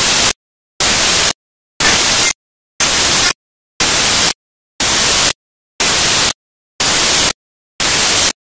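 Bursts of white-noise static, each about half a second long, repeating once a second, nine in all, switching on and off abruptly with silence between.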